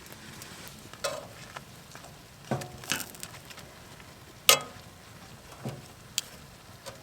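Prawns sizzling in garlic butter in a pan, stirred with a utensil that scrapes and clacks against the pan several times, the loudest knock about four and a half seconds in.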